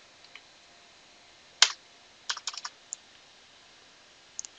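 Computer keyboard keystrokes: one sharp key press about a second and a half in, a quick run of about five presses around two and a half seconds, and two more near the end, over a faint steady hiss.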